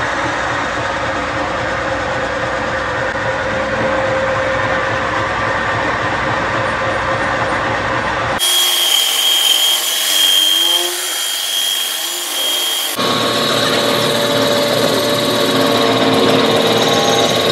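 Electric flour mill (grain pulverizer) running as it grinds a roasted ragi-and-grain mix into flour: a loud, steady machine noise with a whine held through it. The sound changes abruptly about eight seconds in and again about thirteen seconds in, the middle stretch thinner with a high steady tone.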